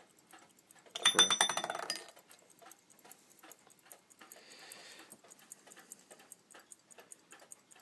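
Metal clinking and jingling from a pocket watch being handled, with one louder ringing jingle about a second in that lasts about a second, then faint small clicks and rustles.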